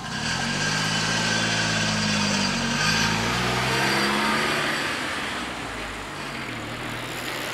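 Road traffic moving off over a level crossing: a car engine close by, starting suddenly and rising and falling in pitch as it accelerates past, with a moped and a second car approaching. The engine fades about six seconds in.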